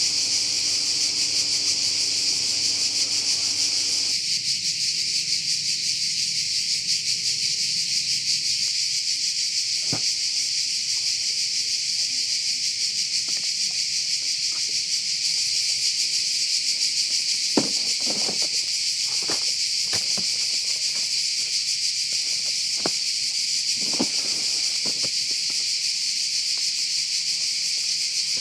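A steady, high-pitched chorus of insects, unbroken throughout. Short clicks or knocks sound now and then, mostly in a cluster about two-thirds of the way through. A faint low hum stops about four seconds in.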